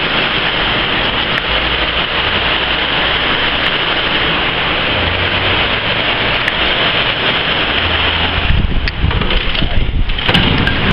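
Heavy storm rain and strong gusting wind, a loud steady hiss. A little over eight seconds in, the hiss thins for about two seconds while a low rumble swells.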